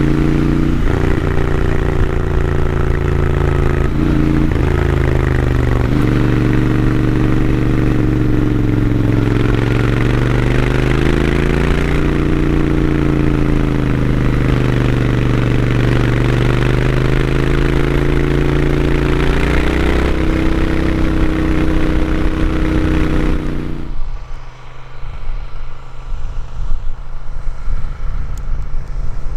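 Royal Enfield Interceptor 650's parallel-twin engine through its stock exhaust, heard from on the bike while riding, its pitch rising and falling with the throttle and dipping briefly a few times. About 24 seconds in, the sound drops to a quieter, distant engine that grows louder as the bike approaches.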